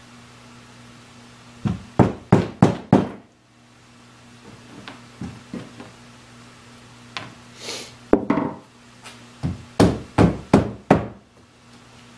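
Small hammer tapping tacks into a wooden slab. There is a quick run of about five strikes, then scattered lighter taps, then another run of about five strikes near the end.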